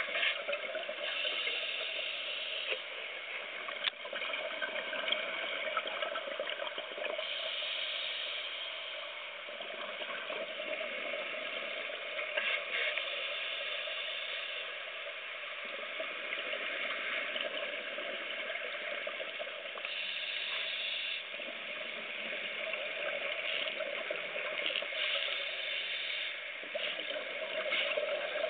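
Scuba diver's exhaled bubbles from a regulator, heard underwater: bursts of bubbling hiss every five to seven seconds over a steady underwater hiss.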